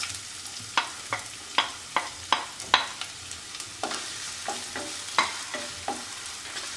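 Chopped onions sizzling in hot oil in a non-stick kadai while a spatula stirs them, knocking and scraping against the pan about a dozen times at an uneven pace.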